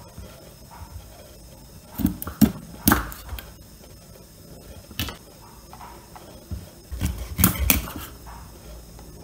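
Cleaver chopping a whole snake into chunks on a wooden chopping board: sharp chops hitting the wood, three about two seconds in, one at about five seconds, and a quick run of several near the end.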